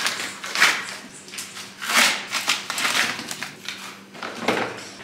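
Thin plastic packaging bag crinkling and rustling in several irregular bursts as it is torn and pulled off a stack of new plastic stools.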